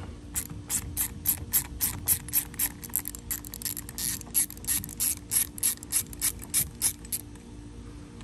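Hand socket ratchet clicking quickly, about four clicks a second, as it backs a nut off the metal strap on an outboard starter motor; the clicking stops about seven seconds in.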